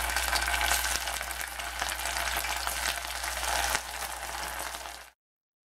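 Raw ground-beef meatballs sizzling and crackling vigorously in very hot soybean oil in a saucepan. The spatter eases a little before four seconds in and then cuts off suddenly about five seconds in.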